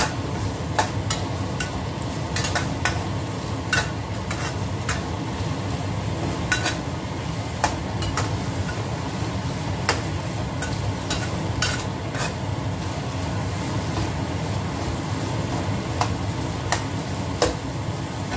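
Stir-frying in a wok: oil sizzling steadily while a metal spatula scrapes and clinks irregularly against the pan as the food is turned.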